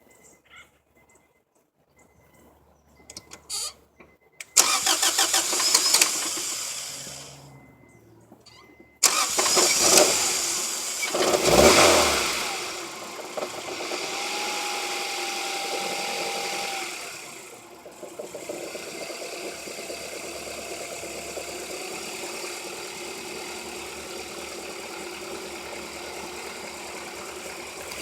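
Honda H22 four-cylinder engine being started. It fires about four seconds in and fades out, then starts again about nine seconds in, revs briefly and settles to a steady idle. The engine has bad rod bearings.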